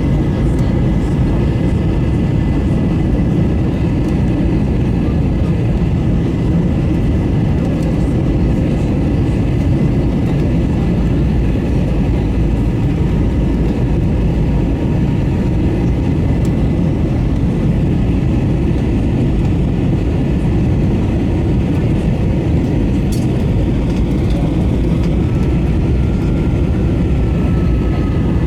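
Airbus A321 airliner cabin noise: a steady, loud rumble of engines and airflow, with faint steady whine tones over it.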